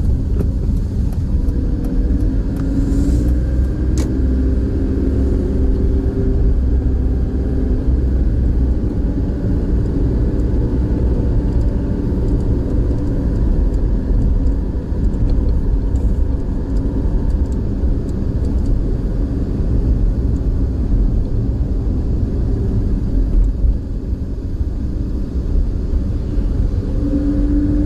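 Car being driven, its engine and tyres making a steady low rumble.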